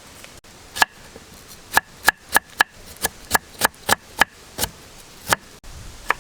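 Knife chopping on a cutting board: about a dozen sharp, irregular strikes, some in quick runs.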